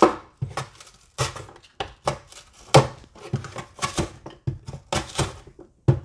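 A red potato is pushed back and forth across the slicing blade of a plastic vegetable chopper, cutting thin slices. Each stroke makes a short, sharp cut, about two or three a second.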